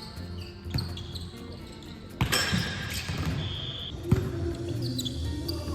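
Volleyball play on an indoor court: sharp ball impacts about three times, the loudest near the middle, with short squeaks of shoes on the floor.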